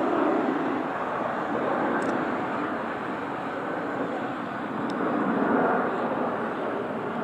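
Boeing 747's four jet engines passing low overhead on approach to land: a steady rushing jet noise that swells slightly a couple of times.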